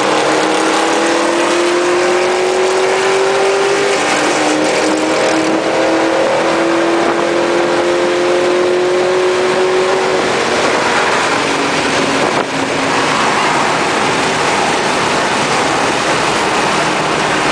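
A car engine, heard from inside the cabin, accelerating hard: its pitch climbs steadily, drops at a gear change about four seconds in, and climbs again through the next gear. About ten seconds in the engine note falls away as the car backs off, leaving steady road and wind noise.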